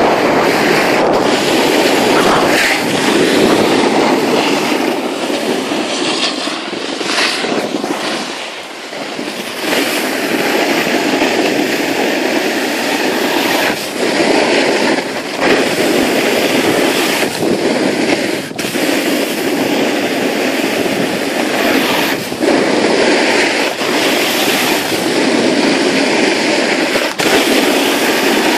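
Wind rushing over a phone microphone and a snowboard scraping over packed snow during a downhill run, a loud, steady, rough noise that eases for a moment about eight seconds in, with a few sharp knocks along the way.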